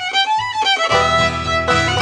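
Background music led by fiddle; about a second in, a fuller part with a strong bass line comes in.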